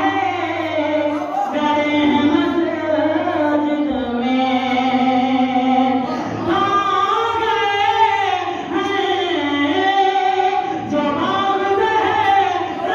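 A single voice singing a devotional poem in long, held melodic phrases that bend up and down, over a steady low hum.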